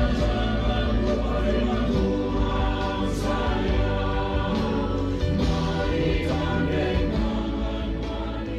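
Choir singing a Christian song in long, held chords.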